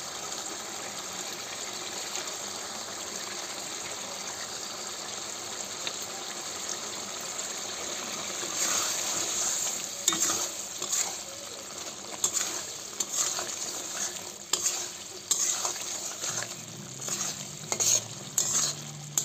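Vegetables sizzling in a hot frying pan. From about eight seconds in, a spatula scrapes and knocks against the pan in irregular strokes as the curry is stirred.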